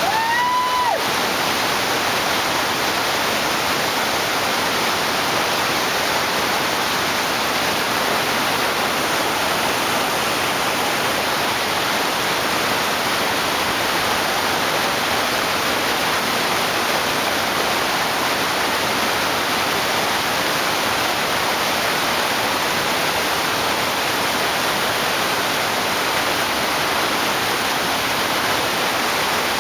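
Steady roar of the whitewater at Lava Falls, a large Colorado River rapid, rushing evenly throughout. A brief high tone sounds right at the start.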